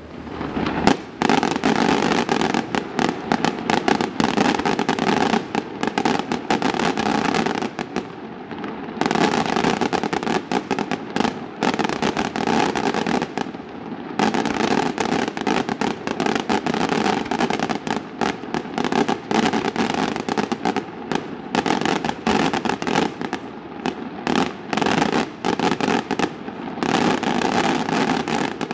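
Aerial fireworks display: a dense, rapid run of shell bursts and crackling bangs, easing briefly about eight and thirteen seconds in before building again.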